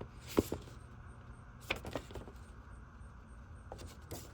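A few short, light rustles and taps of a paper instruction sheet being handled and leafed through, over a faint steady room hum.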